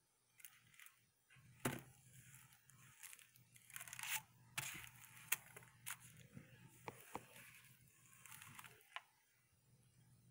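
Compact discs being handled over paper CD sleeves: short bursts of paper rustling and scraping, with several sharp clicks.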